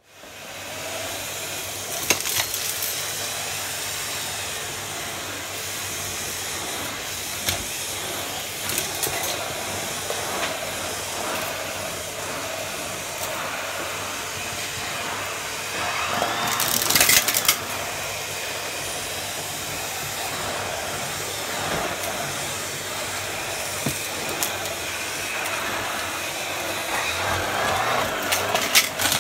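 Numatic vacuum cleaner running steadily with a floor nozzle on carpet, sucking up dust clumps and debris. Occasional clicks and crackles come as bits are pulled up, the loudest cluster about seventeen seconds in.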